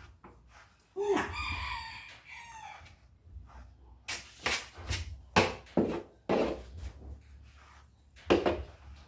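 A rooster crowing once, a drawn-out call starting about a second in and falling away, followed by several short, sharp noisy bursts.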